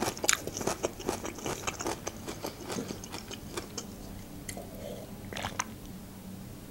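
Close-miked mouth sounds of chewing soft mushroom-and-chicken julienne: quick wet clicks and smacks for the first three or four seconds. They then thin out into a few fainter mouth sounds as water is sipped from a glass.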